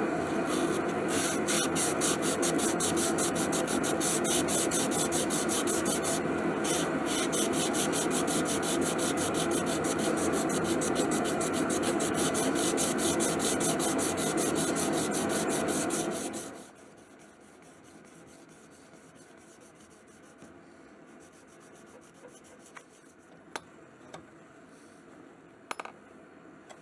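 Hand-sanding a steel knife blade clamped in a vise: a block rubbed rapidly back and forth along the blade, a fast, even scratching. It stops abruptly about sixteen seconds in, leaving a few light clicks and taps.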